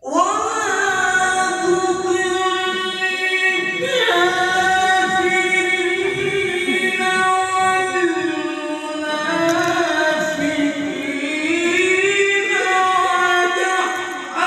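A male qari reciting the Qur'an in melodic tilawah style: one long, ornamented vocal line that starts abruptly, holds a sustained note for several seconds, then climbs in pitch about eight seconds in and again near the end.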